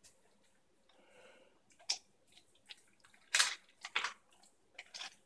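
German Shepherd chewing raw chicken, a string of irregular wet crunches as the bones break, loudest about three and a half and four seconds in.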